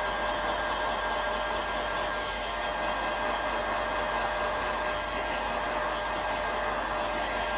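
Handheld heat gun running steadily: an even rush of blown air with a faint steady tone in it, as it heats window tint film to shrink it onto the glass.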